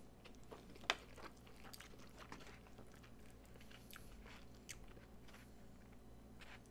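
Quiet close-up chewing of a mouthful of loco moco (hamburger patty, egg, gravy and brown rice): scattered soft mouth clicks and smacks, with one sharper click about a second in.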